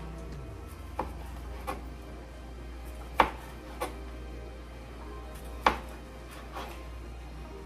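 A kitchen knife slicing kielbasa sausage on a cutting board: about six sharp, irregular knocks of the blade striking the board, the loudest about three and five and a half seconds in. Background music plays steadily underneath.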